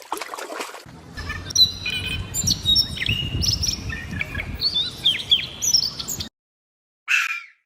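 Several small birds chirping and calling, a busy mix of short chirps and quick pitch glides over a faint outdoor background. It cuts off abruptly about six seconds in, and a short noisy burst follows near the end.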